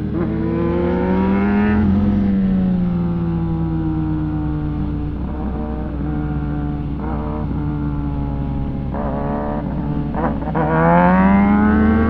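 Sport motorcycle engine revving under way, its pitch climbing over the first two seconds, falling slowly, then climbing hard again near the end, with wind noise on the microphone.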